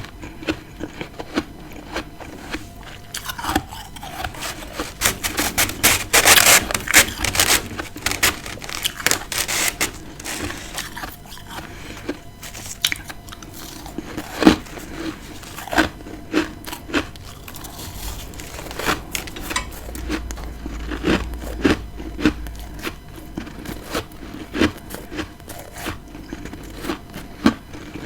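A person biting and chewing freezer frost, close to the microphone: dense, rapid crunching from about three to eleven seconds in, then slower, separate crunches and scrapes.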